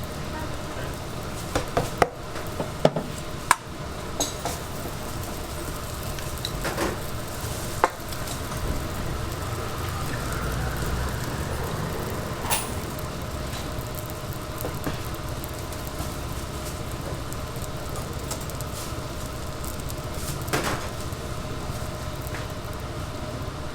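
Youtiao dough sticks frying in hot oil, a steady sizzle, with sharp metal clicks and taps against the pot, several in quick succession a couple of seconds in and a few scattered later.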